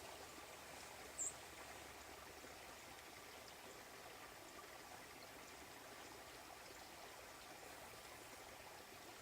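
Near silence: a faint, steady hiss of outdoor ambience, with one short high-pitched chirp about a second in.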